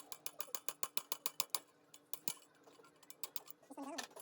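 Rapid sharp mechanical clicking, about eight clicks a second, in two runs with a pause in between.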